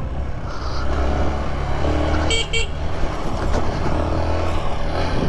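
Motorcycle riding along a rough dirt road with a steady low rumble. About two and a half seconds in, a horn beeps twice in quick succession.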